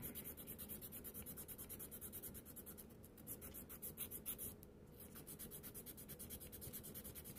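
Fast, even back-and-forth scratching of a hand nail file on a fingernail, about eight to ten strokes a second, with a short break about four and a half seconds in. The pinky nail is being filed down so a dual form will sit right on it.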